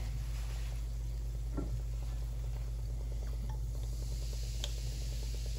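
Chocolate porter beer poured from a bottle into a Dutch oven of simmering stock, with faint bubbling and ticks. A fizzing hiss from the foaming beer builds from about four seconds in, over a steady low hum.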